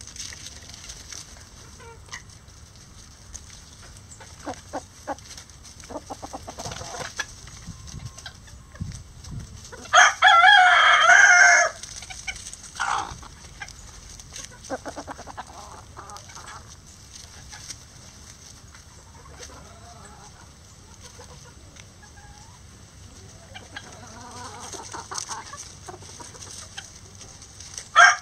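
A bantam rooster crows once, loud and about a second and a half long, starting about ten seconds in. Hens cluck softly around it before and after the crow.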